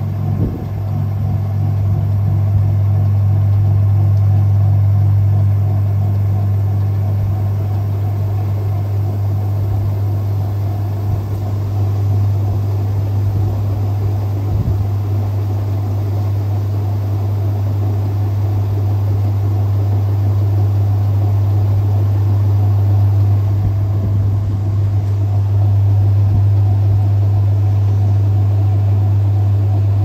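Maytag Heritage top-load washing machine in its spin cycle, with wet towels pinned to the basket wall. It makes a steady low motor hum that grows louder over the first few seconds as the basket comes up to speed, then holds steady.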